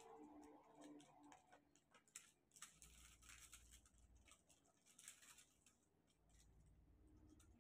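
Faint, irregular small clicks and taps: a diamond-painting drill pen picking drills out of a plastic tray and pressing them onto the canvas.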